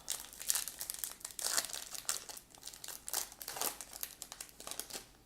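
Wrapper of a baseball card pack crinkling as it is opened, an irregular run of crackles that stops near the end.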